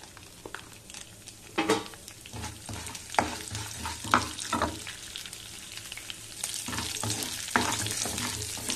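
Split urad dal frying in coconut oil in a pan on medium flame, a steady sizzle, with a spatula scraping and knocking in the pan at irregular moments as the dal is stirred.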